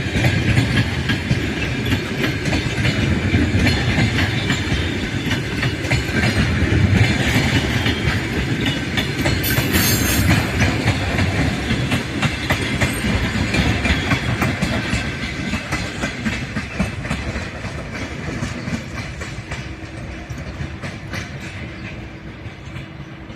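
Long-distance passenger train's carriages rolling past, the wheels clicking steadily over the rail joints over a continuous rumble, with a short hiss about ten seconds in. The sound fades as the train moves away over the last several seconds.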